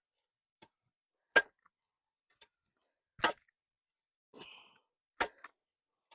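Three sharp knocks about two seconds apart, with a short scraping squeak just before the third.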